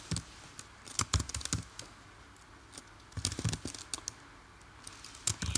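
Computer keyboard being typed on in short bursts of keystrokes, with pauses between the bursts.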